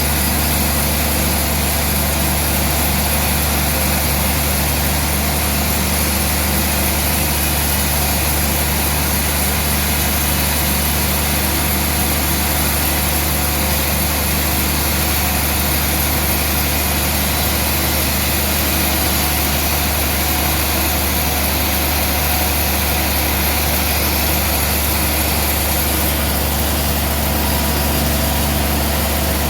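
A large engine running steadily at an even speed, with a deep, unchanging hum.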